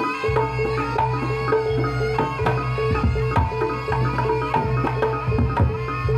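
Javanese jaranan dance music: hand drums playing a busy pattern of strokes over held, ringing gamelan-style tones.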